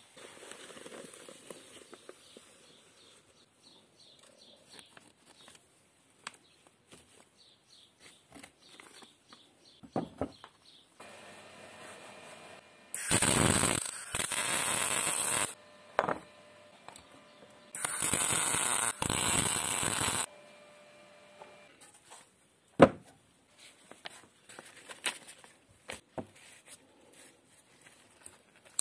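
Stick welder arc crackling and hissing in two bursts of about two and a half seconds each, as a rod welds a contact point onto a rusty steel nail puller. Before them comes the rustle of plastic film being cut with scissors, and after them a single sharp knock.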